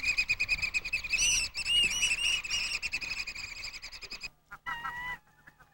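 Birds calling: a fast run of high, chattering chirps for about three seconds that then fades. After a brief gap, a few different, lower calls come near the end.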